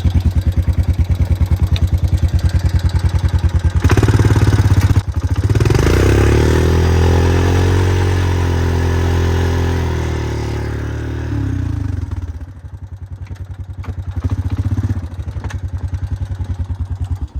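Small off-road vehicle engine running as the vehicle is backed up: a pulsing idle, revving up about five seconds in and holding, then easing back to idle, and cutting off near the end.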